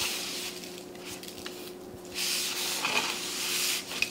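Beef roast crusted with coarse salt and pepper rolled and pressed across an aluminum sheet pan, the grains scraping against the metal as the meat picks up the loose seasoning. Two stretches of rubbing with a short pause about halfway.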